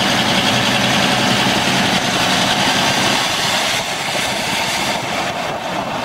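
Large engine idling steadily under a broad hiss, easing off a little in the second half.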